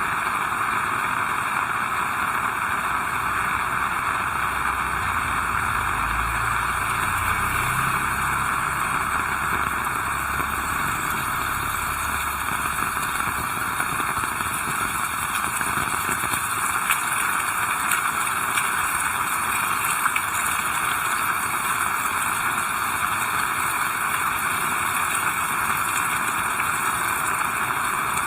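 Heavy rain falling steadily as a dense, even hiss. A low rumble builds a few seconds in and fades out again after several seconds.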